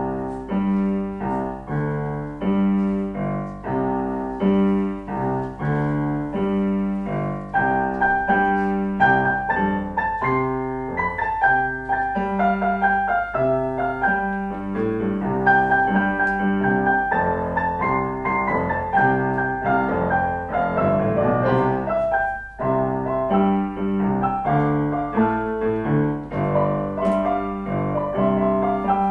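Keyboard music: a piece played on piano-type keyboards, with repeated chords under a melody line and one brief break about two-thirds of the way through.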